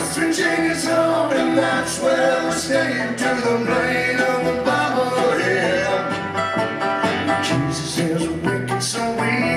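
Bluegrass string band playing live, with banjo and guitar over a steady beat and a bending melody line on top.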